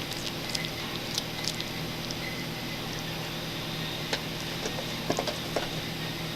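Scattered sharp clicks and small scrabbling taps as a bearded dragon feeds on live superworms, in clusters with pauses between, over a faint steady low hum.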